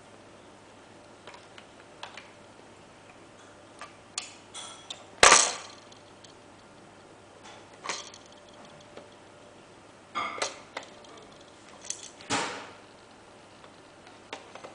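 Plastic toy blocks clicking and knocking as a baby handles and stacks them: scattered small ticks with a few louder knocks, the loudest about five seconds in and another about twelve seconds in.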